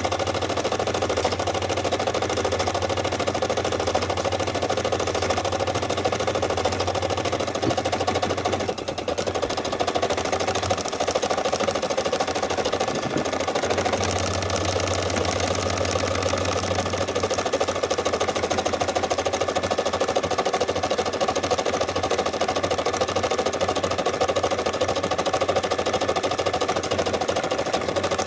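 Brother SE600 embroidery machine stitching steadily, its needle running fast while the embroidery arm moves the hoop, with a brief lull about nine seconds in.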